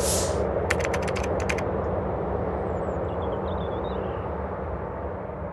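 Steady jet-aircraft engine rumble, slowly fading out, with a brief whoosh at the start and a quick run of sharp clicks about a second in.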